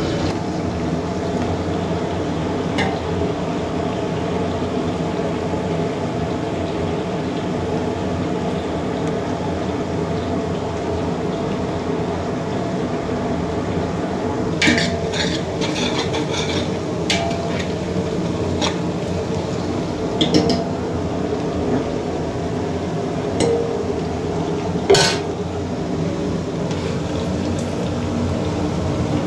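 A metal ladle knocks and scrapes against a large metal pot of onions and green chillies frying in oil: a few clinks from about halfway through, the loudest near the end. Under them runs a steady low hum.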